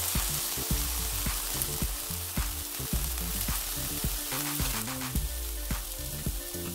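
Lotus root slices and kkwari peppers frying in oil in a pan, a steady sizzle broken by frequent short clicks.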